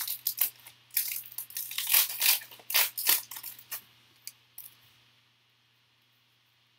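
Foil wrapper of a trading-card pack being torn open and crinkled by hand: a quick run of crackling rustles for about the first four seconds, then two faint ticks.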